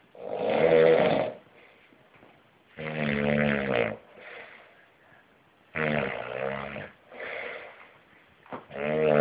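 A man snoring in his sleep: a loud snore about every three seconds, each lasting about a second, with a softer breath between them. The fourth snore starts near the end.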